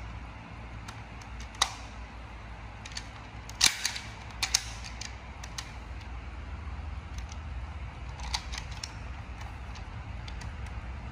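Sharp plastic clicks and taps from a hard-plastic Imaginext toy airplane being handled and turned over in the hand: a few scattered clicks, with the loudest cluster about four seconds in, over a steady low hum.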